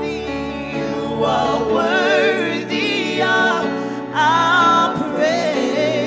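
Gospel worship singing: a woman's lead voice with vibrato and harmony voices, over sustained instrumental chords. A high held note a little past the middle is the loudest part.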